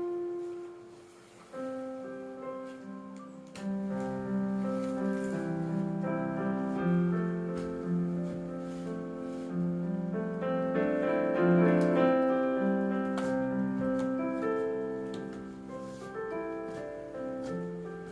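Background piano music: single notes at first, then a fuller accompaniment with a bass line entering about three and a half seconds in, swelling and then softening toward the end.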